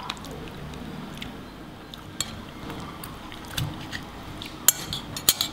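A metal spoon and fork clinking and scraping against a ceramic plate while scooping food onto rice: a few scattered sharp clicks, the loudest near the end.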